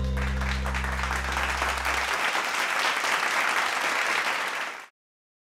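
Audience and judges applauding, with the band's last low held note sounding under the clapping for about the first two seconds. The applause cuts off abruptly near the end.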